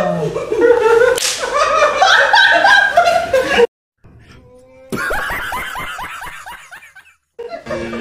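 Men laughing and exclaiming, with a sharp smack about a second in. The sound cuts out briefly, then a man laughs in rapid repeated bursts.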